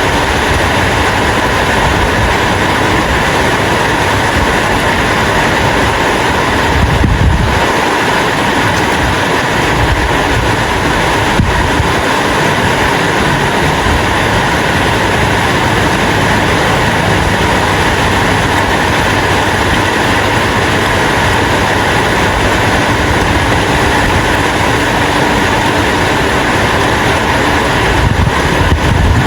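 Steady, heavy rain falling, an even rushing hiss throughout, with two brief low rumbles about seven seconds in and near the end.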